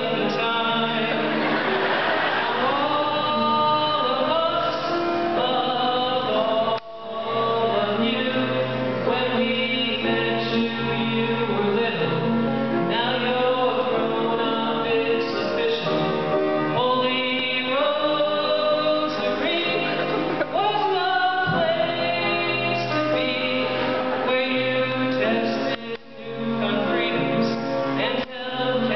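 A song: singing over instrumental accompaniment, with short breaks about seven seconds in and near the end.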